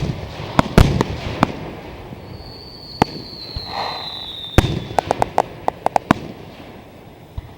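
Fireworks display: aerial shells banging, several sharp bursts in the first second and a half, one about 3 s in and another about 4.6 s in, followed by a quick run of about eight crackling reports. A high whistle sliding slightly down in pitch runs from just past 2 s until the bang at about 4.6 s.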